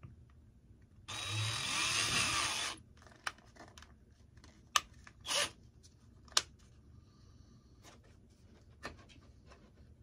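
Cordless drill with a small bit running for about a second and a half, its motor pitch rising and falling as it bores through a model-airplane propeller. A shorter burst of the drill follows midway, with a few sharp clicks from handling the drill and the propeller.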